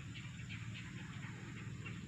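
Faint outdoor ambience: small high chirps repeating several times a second over a steady low hum and a thin high-pitched drone.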